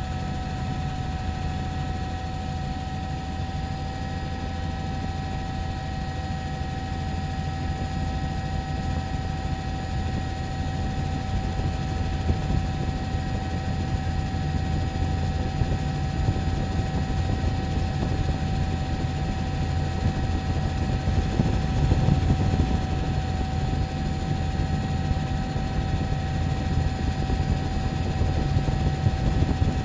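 Helicopter rotor and turbine engine running steadily, heard from on board: a constant low rumble with a thin, steady whine above it.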